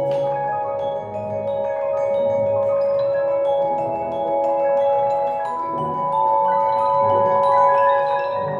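Vibraphone and glockenspiel struck with mallets: a stream of quick, bright short notes over long ringing, overlapping tones.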